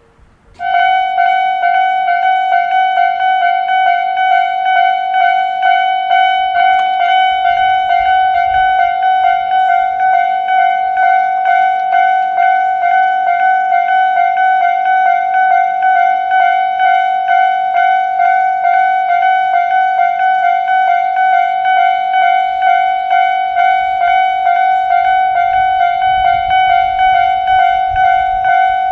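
Japanese railway level-crossing alarm on the Tobu Nikko Line: a high-pitched electronic crossing bell that starts about half a second in and keeps ringing at one steady pitch in rapid, even repeats.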